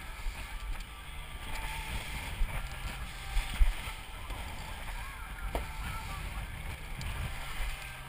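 Moving boat at sea: steady wind rumble on the microphone and water rushing in the wake, with two short knocks near the middle, the second the louder.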